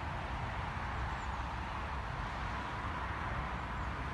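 Wind buffeting the microphone over a steady hiss of distant background noise, with a faint short high chirp about a second in.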